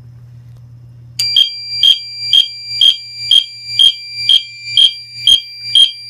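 EST Genesis fire alarm horn sounding in short chirp-like pulses about twice a second (march time, 120 per minute, set by the fire alarm control panel), starting about a second in after a low hum.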